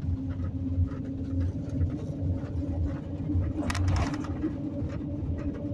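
Vehicle engine and tyre noise heard from inside the cabin while driving on the highway: a steady low drone with a constant hum. There is a brief rattle about four seconds in.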